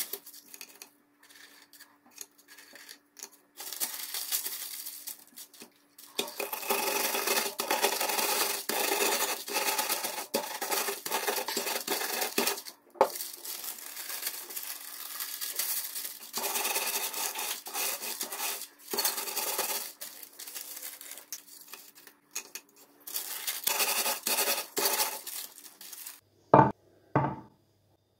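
Dry biscuits being crushed inside folded baking paper: crunching and paper crinkling and scraping in several long stretches with short pauses. Two or three low knocks near the end.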